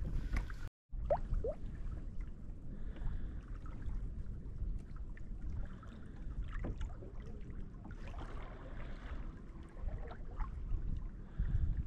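Wind buffeting the microphone over small waves lapping and slapping against a sit-on-top kayak's hull, with scattered small knocks.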